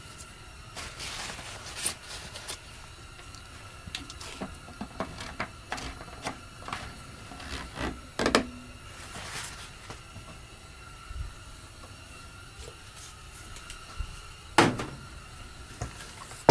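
Scattered clicks, knocks and light plastic-and-metal clatter of a chainsaw and tools being handled on a workbench, with a sharper knock about eight seconds in and another near the end.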